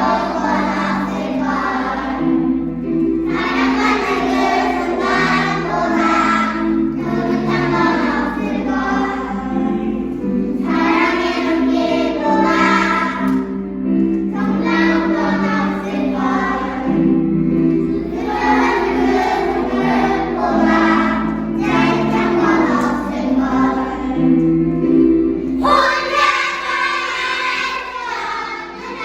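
Choir of six-year-old children singing a song in phrases of a few seconds, over an accompaniment whose low held notes carry on between the phrases.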